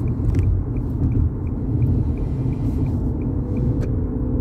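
Steady low road and engine rumble inside a moving car's cabin, with a faint high ticking about three times a second.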